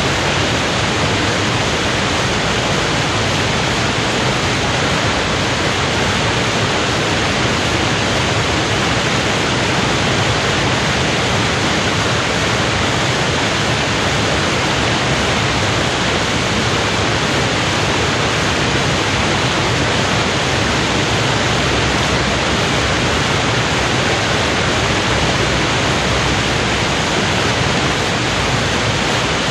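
Water pouring over a weir in full flood: a loud, steady, unbroken rush of falling water.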